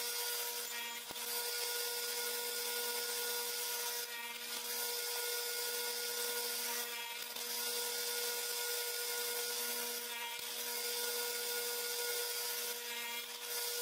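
Table saw running with a steady hum, with a few short surges of hiss as the blade cuts wedges from 3/4 inch stock.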